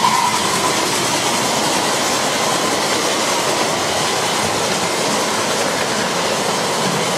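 Riding-scale live steam train cars rolling past on small-gauge track, a steady rumble and clatter of wheels on rail.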